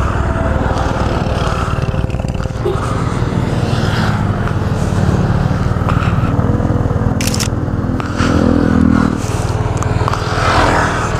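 Yamaha TMAX maxi-scooter's parallel-twin engine running, with wind and road noise. About two-thirds of the way in the engine note gets louder and higher for a few seconds.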